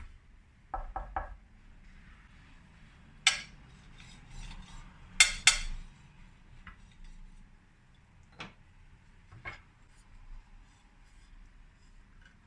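Kitchenware being handled: a quick run of three ringing clinks about a second in, two louder knocks around three and five seconds, then a few lighter taps.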